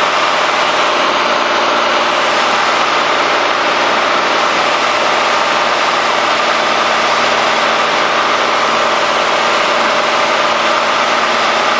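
Cessna 210D's six-cylinder Continental engine and propeller droning steadily, heard inside the cabin, at approach power on final with the propeller set forward to high rpm.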